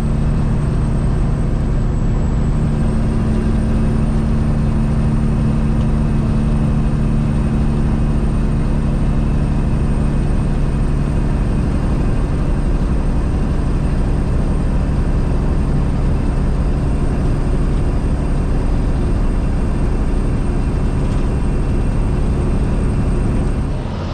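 Peterbilt 379 semi truck's diesel engine running steadily at cruise, with road noise and a thin, steady high whine over it.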